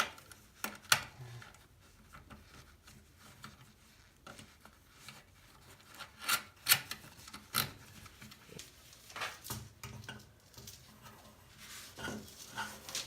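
Hand-handling noise from fitting a cable connector into a knockout in an electrical remodel box: scattered sharp clicks and knocks with quiet rubbing between them, the loudest click about two-thirds of the way in.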